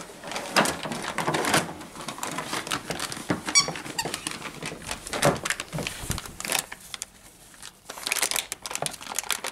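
Labradoodle puppy chewing and tearing at a paper packet: irregular crackling and rustling, with a brief squeak about three and a half seconds in.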